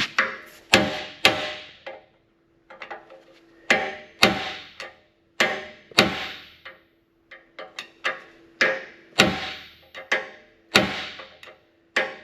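Hammer blows on a handled steel punch, driving a bent pin out of a skid steer blade's skid: about twenty sharp metal strikes in quick runs of roughly two a second, each ringing on after the blow.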